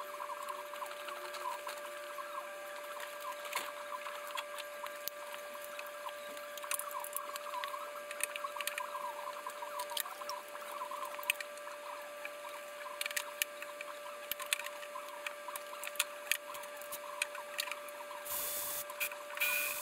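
Irregular light clicks and clinks of hand tools working on metal, over a steady hum, with two short bursts of louder noise near the end.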